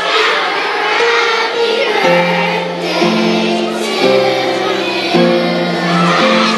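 A large group of children singing together, over a low musical accompaniment, in notes held about a second each.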